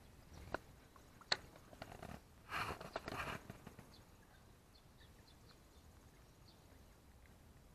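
Spinning rod and reel being handled: a few sharp clicks, the loudest about a second in, a brief rustle around three seconds in, then faint light ticking.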